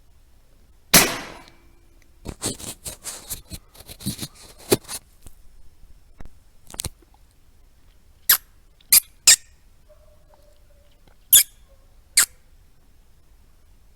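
A single sharp crack about a second in, then rats squeaking: a quick flurry of short squeaks, followed by single sharp squeaks spaced a second or so apart.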